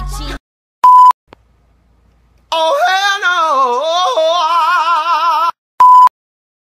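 A loud, high, steady test-tone beep, then a pause, then a voice singing one long wavering note with wide vibrato for about three seconds, cut off by a second loud beep.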